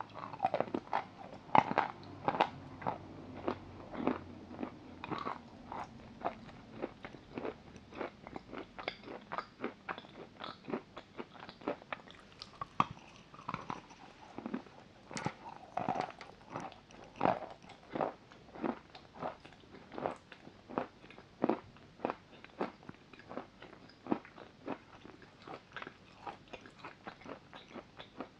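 Close-miked chewing of a mouthful of chalk: a dense run of sharp crunches, loudest in the first few seconds, then settling into steady chewing at about two crunches a second.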